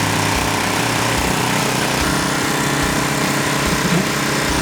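Concrete mixer's engine running steadily with a constant low hum.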